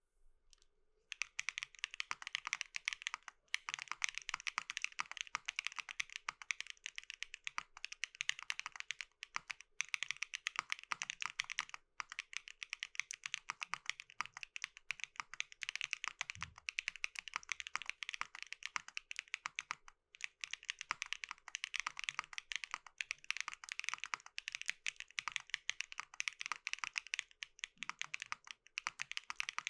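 Fast, continuous typing on a mechanical keyboard with lubed Keygeek Y3X linear switches mounted on an aluminium plate, keys clacking rapidly in quick runs with a few short pauses.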